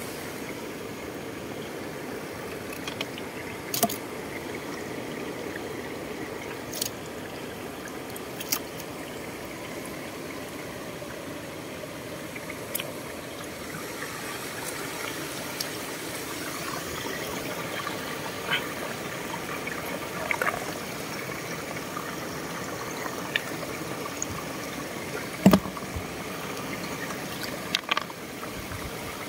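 Shallow water flowing and trickling between rocks in a stone channel, a steady rush, with scattered sharp clicks and knocks; the loudest knock comes about four seconds before the end.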